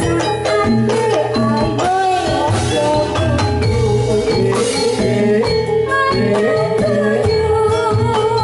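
Javanese jathilan gamelan music with a singing voice, played loud and steady through a PA sound system.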